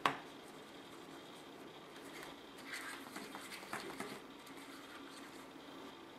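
A sharp plastic click right at the start, then a small plastic spoon scraping and stirring a thick candy paste in a plastic tray for a second or two.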